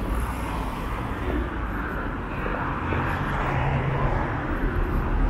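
City street ambience at night: steady traffic noise from cars running along a busy road, with the general hum of a crowded pavement.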